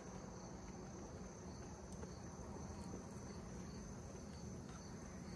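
Faint, steady insect chorus, a continuous high-pitched trill typical of crickets at dusk.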